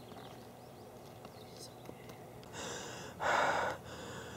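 A person breathing loudly close to the microphone: a faint outdoor background, then one loud, breathy breath about three seconds in.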